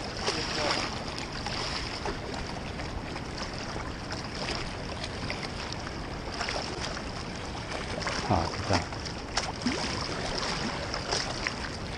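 Steady rushing of a fast-flowing river against a stone embankment. A few short knocks about eight seconds in are the loudest sounds.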